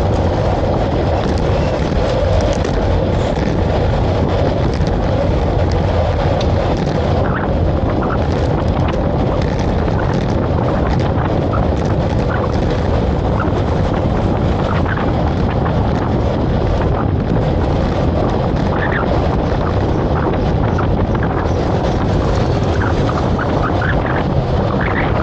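Steady wind and road noise of travel, a loud low rumble with a constant hum, with scattered light clicks and rattles from about eight seconds in.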